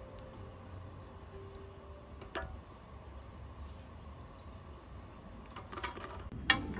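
Metal fire tongs scraping and clinking in a wood stove's firebox as embers are picked out, a single click about two seconds in, a quick run of clicks near the end and one sharp metallic clink just after them.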